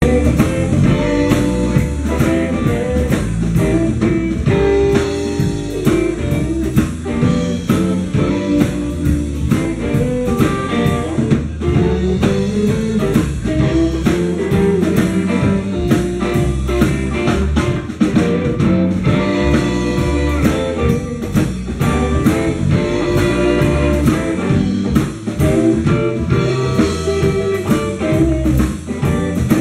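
Blues band playing live: a guitar carrying the tune over a drum kit, with no singing.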